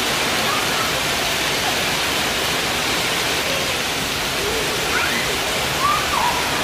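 Heavy monsoon rain pouring down steadily: a dense, even roar of rain on a paved courtyard.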